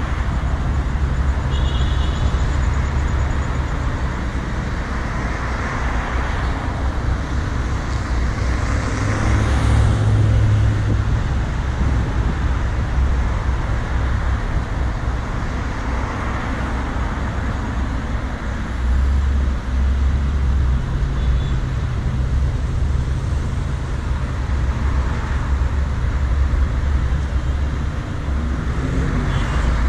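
Traffic noise heard from a car crawling in slow city traffic: a steady low rumble with a hiss of surrounding vehicles.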